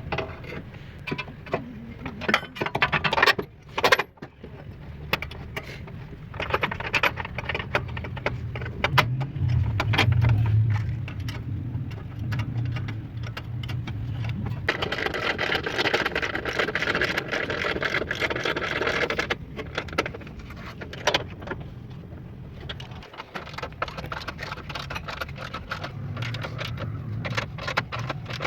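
Metallic clinking and rattling over a steady low engine hum, with a stretch of louder noise about halfway through.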